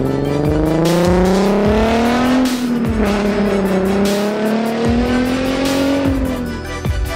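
Nissan 370Z's 3.7-litre V6 accelerating through a Tomei titanium cat-back exhaust. Its pitch climbs, drops once about two and a half seconds in, climbs again, then fades near the end. Music with a beat plays underneath.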